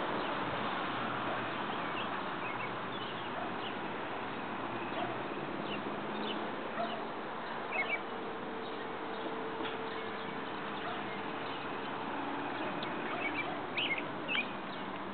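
Outdoor ambience: a steady background hiss with birds chirping now and then, short calls that come in little clusters about eight seconds in and again near the end.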